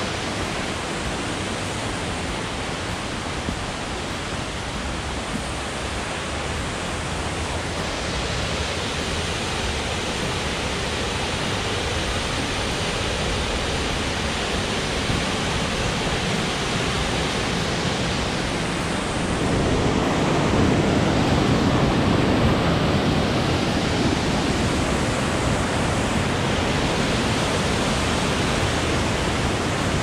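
Gollinger Wasserfall rushing: water pouring from a rock cave and splashing down over boulders into a pool, a steady even rush. It becomes louder and fuller about two-thirds of the way through.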